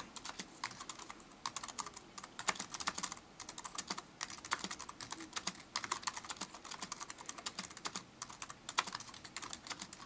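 Typing on a Logitech Illuminated Keyboard's flat, low-profile keys: a steady patter of quick key clicks with a few brief pauses, a sound called quite pleasant.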